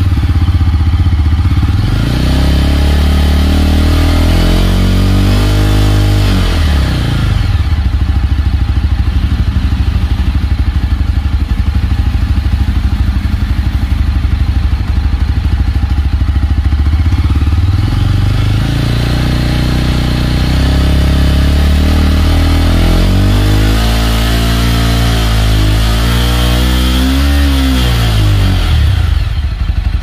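Yezdi Roadster's single-cylinder engine revved through its exhaust in a throttle loudness test: the revs climb for several seconds and drop back, hold steady, then climb again and are blipped up and down several times before falling back near the end.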